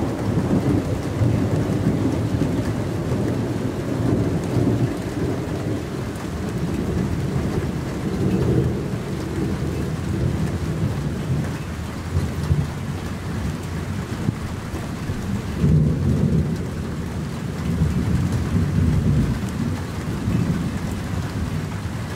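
Steady rain falling on a lake's surface, with rolling thunder rumbling under it in several swells, the strongest about two-thirds of the way through.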